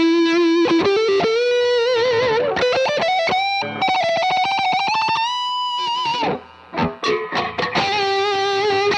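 Glarry GTL Telecaster-style electric guitar played through distortion: a lead line of sustained, wavering notes that climbs step by step in pitch, breaks off about six seconds in for a few short choppy hits, then settles on another held note.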